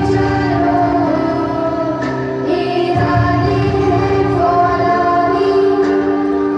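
Music with singing, a group of voices holding sustained notes over a steady accompaniment.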